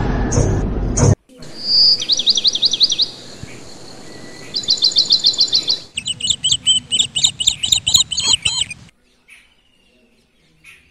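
Background music cuts off about a second in. Birds then chirp in quick runs of high repeated notes, followed by a second, denser run of different sharp chirps that stops about nine seconds in.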